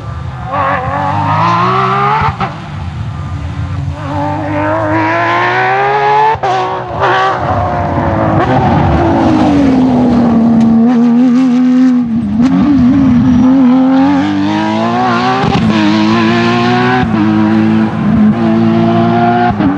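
Porsche 997 GT3 rally car's 3.6-litre flat-six revving hard, the pitch climbing and then dropping abruptly at each upshift of its sequential gearbox, over and over as it drives the stage and passes close by.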